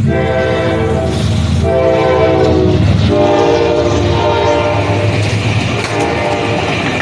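A train horn sounding a chord in several long held blasts, with a short break about three seconds in, over the low rumble of the moving train.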